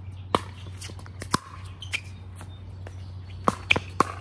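Pickleball rally: sharp pops of paddles hitting a plastic pickleball back and forth, about six in all, with a quick run of three near the end.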